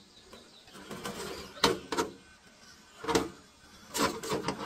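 Traxxas TRX-4 RC crawler climbing over rock: short spurts of electric motor and gearbox whirr, with knocks and scrapes of the tyres and chassis on the stone. There are several separate spurts, with a quick cluster of four near the end.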